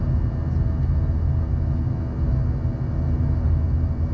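Steady drone of an Airbus A319 with IAE engines, heard from inside the cabin: a constant low rumble of engine and airflow noise with a faint steady hum above it.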